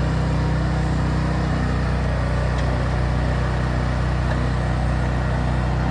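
An engine idling steadily, a constant low hum that holds an even pitch.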